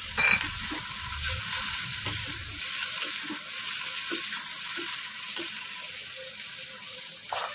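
Fried potato cubes, onion and tomato sizzling in a hot kadhai. A metal slotted spoon stirs them, scraping and knocking against the pan, with a louder knock just after the start.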